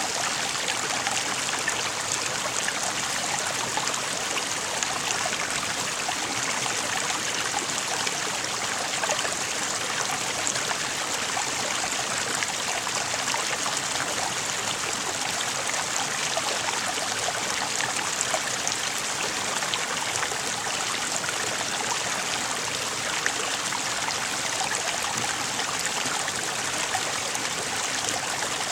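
Water flowing in a stream, a steady, even running-water noise with no breaks.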